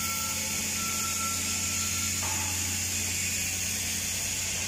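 Steady fabrication-shop machinery noise: a constant low hum under a broad hiss, with a faint high whine that stops about two seconds in.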